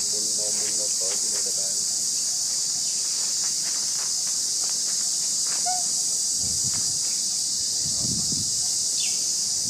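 Steady, high-pitched drone of insects, with faint rustling about two-thirds through and a short falling chirp near the end.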